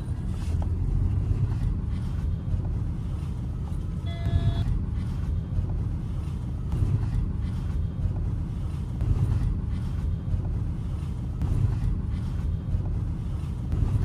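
Road and engine noise inside a moving car in city traffic: a steady low rumble throughout. A brief higher tone sounds about four seconds in.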